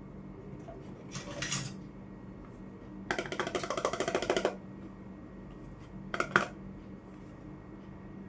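Miniature toy kitchenware handled and tapped: a short clatter about a second in, then a rapid run of light taps lasting about a second and a half, and one more brief clink later on.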